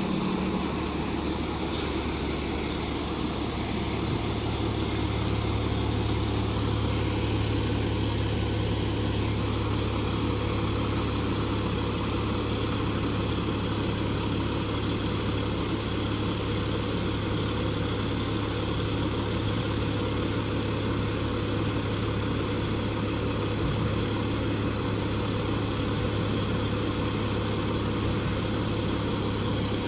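Garbage truck's diesel engine running steadily with a strong low hum, and a brief high hiss about two seconds in.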